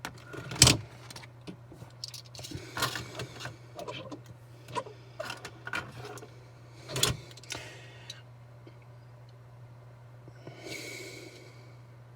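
Handling noise of a small metal die-cast model car: scattered clicks, clinks and light knocks, the loudest near the start and about seven seconds in, then a brief soft rustle near the end, over a steady low hum.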